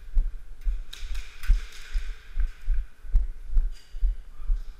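Footsteps of a player walking briskly on a concrete floor, picked up through the worn camera as low, regular thuds about two a second, with a few light clicks of gear.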